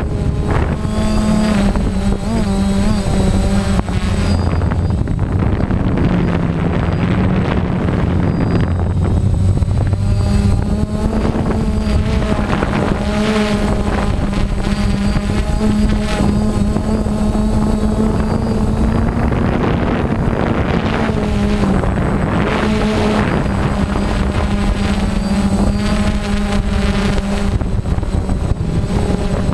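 A multirotor drone's electric motors and propellers buzzing right at its onboard camera. The hum is loud and steady, and its pitch wavers up and down a little as the drone manoeuvres.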